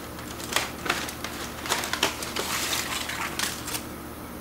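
Irregular clicks and light clatter of rib racks being handled and moved off the grill, over a steady low hum.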